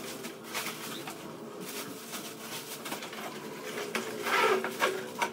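Unboxing noise: a plastic-wrapped softbox and its long cardboard box being handled, with rustling, scraping and light knocks. The loudest stretch, a rasping scrape, comes about four seconds in.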